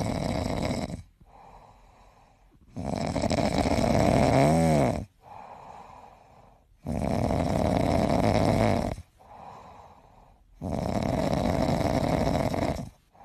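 Sleeping domestic cat snoring: four loud snores, about four seconds apart, with a fainter breath between each.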